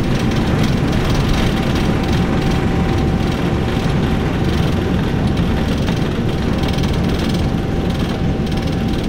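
Boeing 777 taking off, heard from inside the cabin: a loud, steady rumble of the engines at takeoff power and the jet rolling and lifting off, with a thin steady tone running through it.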